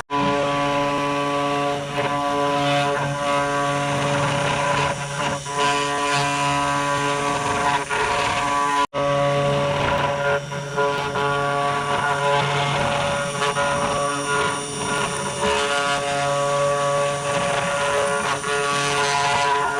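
CNC 3018 Pro desktop router running steadily while routing a wooden board: a constant motor whine with many overtones over a rougher cutting noise. It cuts out for an instant twice, at the very start and about nine seconds in.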